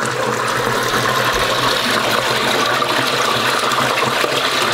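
Water gushing steadily from a freshly unblocked drain pipe into a flooded square shaft, churning and splashing on the water's surface, with a low steady hum underneath.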